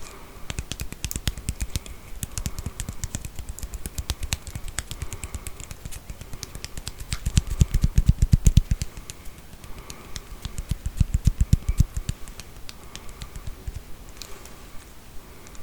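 Comb teeth strummed or scratched in a rapid run of clicks, with two louder, heavier stretches about halfway through and again a few seconds later.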